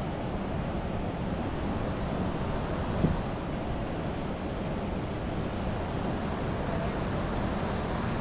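River rapids rushing steadily, with a single short thump about three seconds in.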